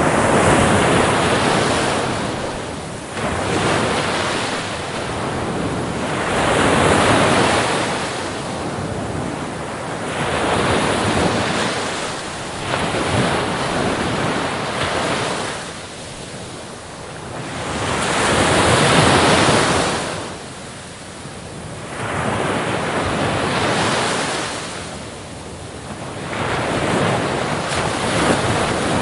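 Sea waves breaking and washing onto shore, the surf rising and falling in swells every few seconds, with some wind.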